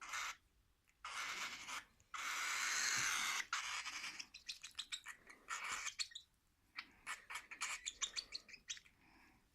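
Baby lovebird and cockatiel chicks giving harsh begging calls while being hand-fed formula: hissy bursts, the longest and loudest about two to three and a half seconds in, then a quick run of short chirps near the end.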